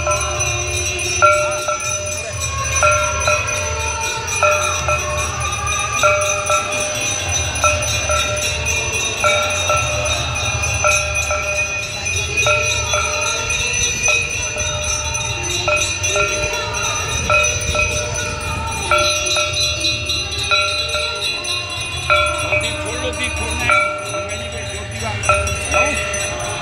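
Bells ringing without pause during the Ganga aarti, over devotional aarti music with a repeating stepwise melody.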